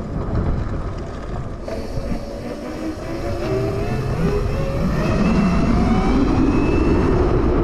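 Electric drive of a Razor RSF650 converted with an Electro & Co. 5000 W kit on a 72 V battery, whining and rising steadily in pitch as the bike accelerates hard from about 10 to 26 mph. Heavy wind buffeting on the microphone.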